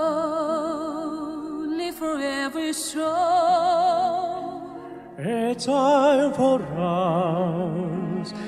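Operatic singing with wide vibrato over instrumental accompaniment; after a brief dip, a new sung phrase comes in about five seconds in.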